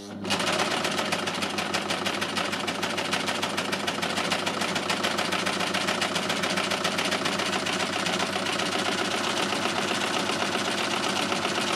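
Success Lucie overlocker (serger) running at speed, sewing a narrow three-thread overlock seam on fabric: a steady, very fast mechanical rattle that starts abruptly and stays even, from a machine called a little noisy.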